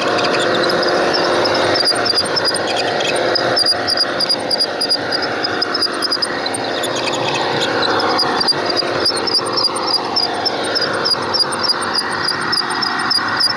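Garden-railway train running along its track, heard from on board: a steady mechanical running noise of the train and its wheels on the rails, with a continual patter of small, high clicks.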